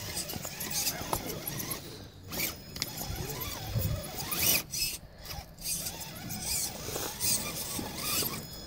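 Electric motor and gearbox of an RC scale rock crawler whining as it is driven in short stop-start bursts, the pitch rising and falling with the throttle, along with scraping as its tyres work over rough rock.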